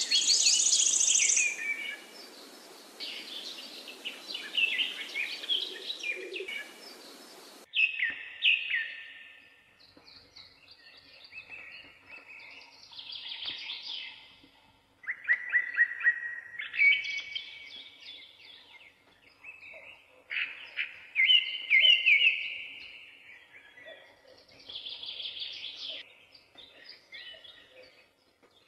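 Songbirds chirping and singing in short repeated phrases, some falling in pitch. A steady hiss lies under them for the first several seconds and cuts off abruptly.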